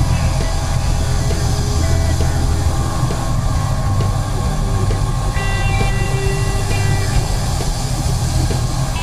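CNC milling machine cutting 316 stainless steel with a 3/8-inch solid carbide end mill, making a full-depth, half-width cut: a steady machining rumble with cutting noise, and a high ringing tone for about a second and a half near the middle.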